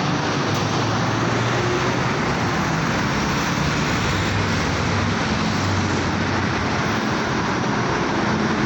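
Busy road traffic: a steady rush of passing vehicles with a low engine hum underneath.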